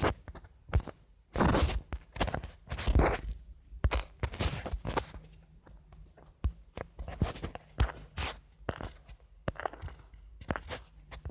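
Irregular knocks, taps and rustles, some louder than others, with no music playing.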